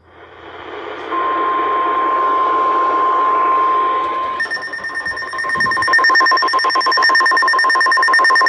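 Emergency Alert System alert coming through on the radio. A hiss of static-like noise fades in, a steady beep-tone joins about a second in, and from about four seconds in a louder alert tone pulses rapidly.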